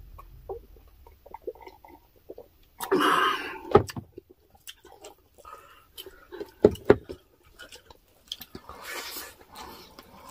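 Close-up eating sounds: chewing and mouth noises with scattered sharp clicks and crunches. The loudest are a short noisy burst about three seconds in with a sharp crack just after, and two more cracks a little before the seven-second mark.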